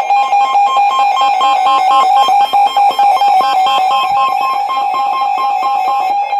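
Canadian Alerting Attention Signal, the electronic alert tone of Canadian emergency warnings: a rapid, chime-like sequence of high tones alternating over a steady one, about eight seconds long. It stops near the end, leading into a weather warning bulletin.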